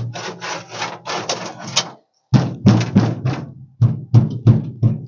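A hand scraping and rubbing flaky rust and peeled seam sealer on the steel cab floor pan of a 1976 Ford truck, a quick run of scratchy strokes. It pauses briefly about two seconds in, then comes back as louder, more spaced strokes.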